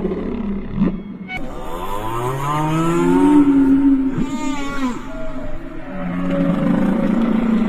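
Whale vocalizations: a series of pitched moans with slow rising and falling glides. A short, fast-warbling high call comes about four seconds in.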